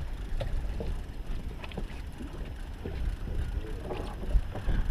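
Steady low rumble of a fishing boat at sea, with scattered small clicks and faint voices now and then.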